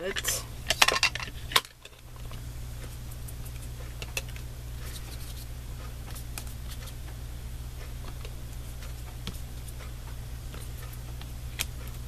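Plastic clicks and clatter of an ink pad case being handled and its lid opened, several sharp knocks in the first second and a half. Then a steady low hum with faint taps and rubbing as ink is applied to the card.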